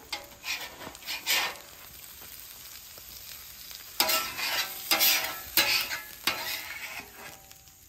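Metal spatula scraping across a hot Blackstone steel griddle top, with sizzling food. A couple of strokes come near the start and a run of strokes follows from about four seconds in.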